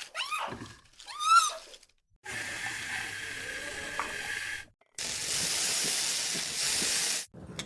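Two short high cries that bend up and down in pitch, then two stretches of steady hissing noise, each about two seconds long, that start and cut off abruptly.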